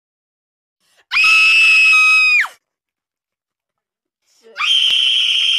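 A woman's high-pitched scream sound effect, twice: a long held scream about a second in that drops off at the end, then a second, slightly higher scream near the end.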